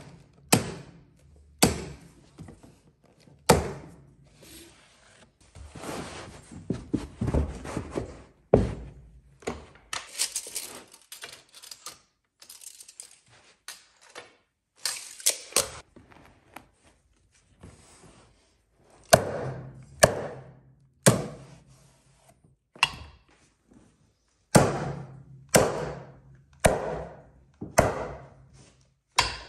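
Carpet stair-runner installation: a series of sharp thunks and knocks from the installer's tools driving the runner into place, irregular and often a second or two apart, with scraping and rubbing of carpet between some of them.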